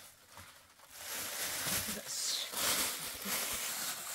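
Thin plastic bag rustling as fruit is handled into it, starting about a second in.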